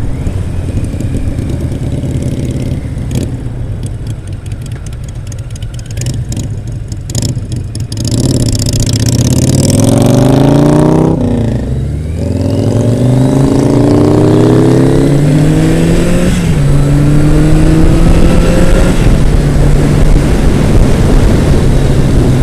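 Motorcycle engine heard from the rider's seat. It runs steadily at first, then from about eight seconds in accelerates through the gears, its note climbing and dropping at each shift, with a sharp dip and pick-up around a curve before settling to a steady cruise. Wind rushes past throughout.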